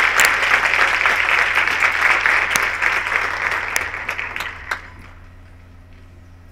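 Audience applauding, the clapping thinning out and dying away about three-quarters of the way through, leaving quiet room tone with a steady low hum.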